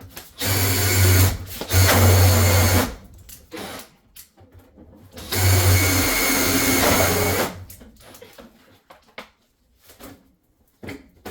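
Power drill driving screws, run in two bursts of about two seconds each, the first with a brief let-off partway through.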